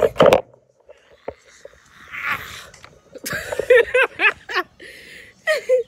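A woman laughing in a run of short bursts, about three a second, with breathy exhalations just before.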